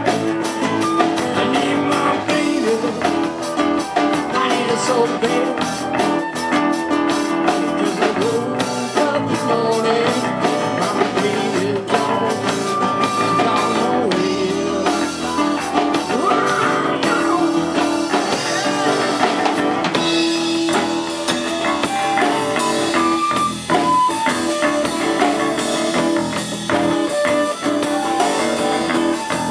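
A live blues-rock band playing: acoustic guitar, electric bass and drum kit, with a man singing.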